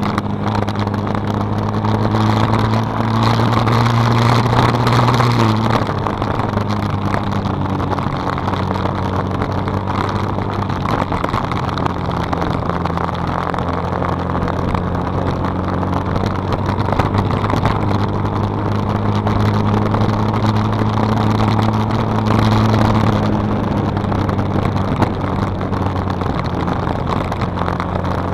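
Small old manual-gear motorcycle engine running steadily under way, with wind rushing. The engine note eases down twice, about five seconds in and again about twenty-three seconds in.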